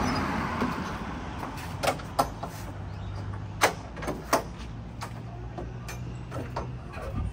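A food truck's rear box door being unlatched and swung open: several sharp metal clacks from its stainless steel latch handles, the loudest about halfway through, over a low steady hum.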